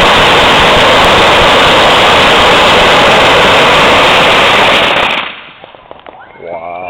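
A heaped pile of 16,000 unwrapped Black Cat firecrackers going off all at once. The bangs come so fast that they merge into one continuous, very loud crackle. It stops fairly abruptly about five seconds in, leaving a few last scattered pops.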